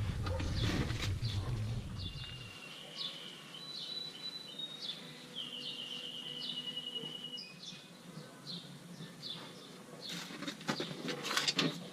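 Small birds chirping in short, repeated calls, with one longer trill in the middle. A low rumble cuts off suddenly about two and a half seconds in, and a few sharp clicks sound near the end.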